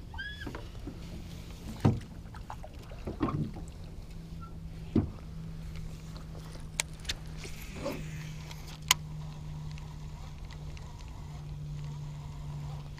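Baitcasting reel being cranked on a retrieve, a steady low whir that grows stronger in the second half, with a few sharp knocks on the aluminium boat, the loudest about two seconds in and again about five seconds in, and a few light clicks.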